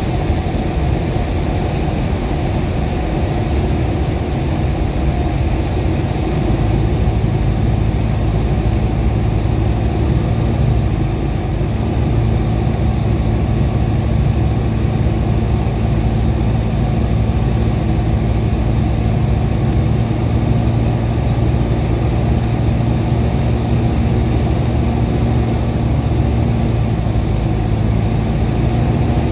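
The engine and propeller of a PS-28 Cruiser light aircraft (Rotax 912) running steadily on the approach to land, heard inside the cockpit. A steady low hum settles into the drone about six seconds in.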